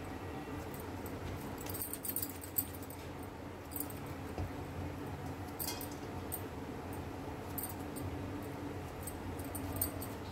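Quiet handling of dough being pinched off and dropped into a steel bowl: scattered faint taps and clicks over a steady low background hum.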